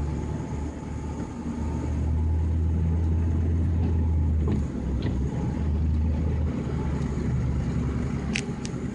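Vehicle engine running with a steady low rumble, most likely the snow plow truck, and a faint whine above it.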